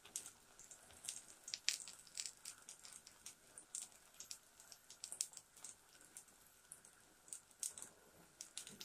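Faint crackling and spitting of a gram-flour roti frying in a pan: irregular small pops, several a second.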